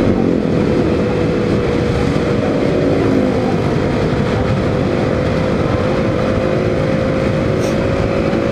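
Motorcycle engine running at a steady cruise, a held engine note under a constant rush of wind and road noise on the bike-mounted microphone.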